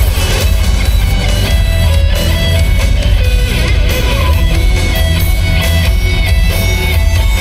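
Loud rock music: strummed electric guitar over a heavy, steady bass.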